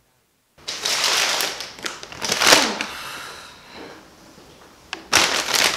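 A paper takeaway bag rustling and crinkling as it is handled. It comes in two loud bouts, one starting about half a second in and one near the end.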